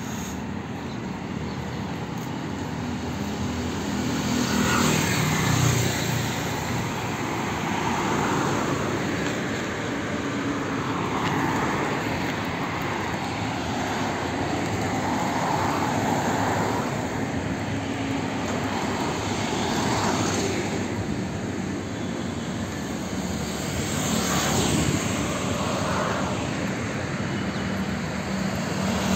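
Steady road and engine noise of a moving vehicle, swelling several times as other traffic passes close by.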